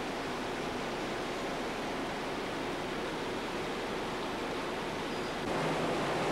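Steady din of tea-factory machinery: the conveyor belts and leaf-crushing machines running, carrying crushed tea leaves. The noise gets a little louder about five and a half seconds in.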